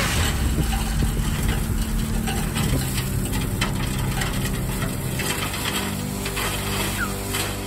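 Tipper lorry's diesel engine running steadily as it raises the tipping body, with a load of road planings pouring and rattling out of the back.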